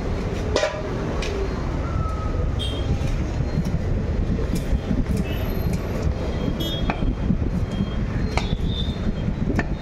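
A steady low rumble of background noise, with scattered light clicks and knocks over it.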